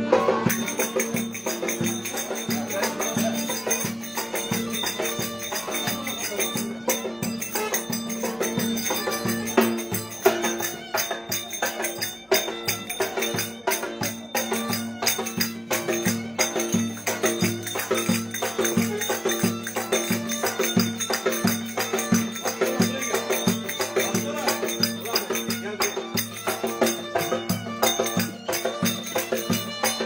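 Live Turkish folk dance music: a violin playing a melody over a davul drum beating a fast, steady rhythm.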